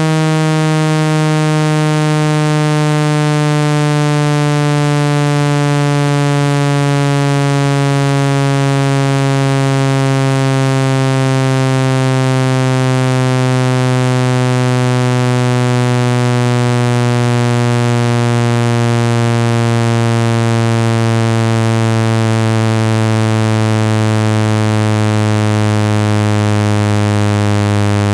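Low, buzzy synthesized tone, a speaker-cleaning sound played to vibrate water out of a phone speaker. It holds steady and loud while its pitch slides slowly downward.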